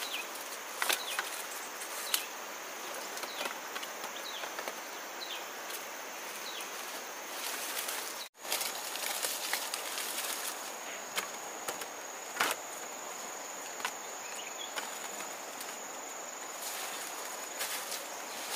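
Rustling of dry sugarcane leaves, with scattered snaps and knocks of sugarcane stalks being handled and stacked in a woven bamboo basket, over a steady high-pitched insect buzz.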